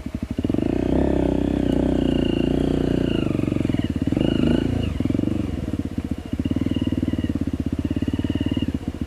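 Trail motorcycle engine being ridden: it pulls harder and louder for the first few seconds with the pitch shifting, then settles to a slower, lighter chugging about five seconds in.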